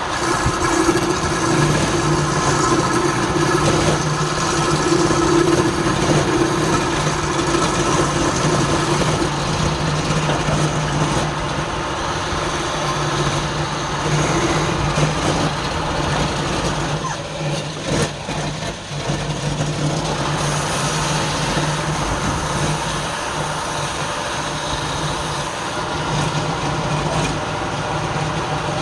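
A wood lathe running steadily, its motor giving a constant hum over a steady broad whirr. The sound eases briefly a little past the middle, then picks up again.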